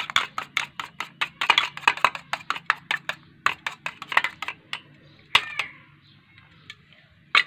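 Metal spoon whisking yogurt in a small steel bowl, clinking against the bowl about four to five times a second, then easing off to softer stirring about five seconds in, with one last clink near the end.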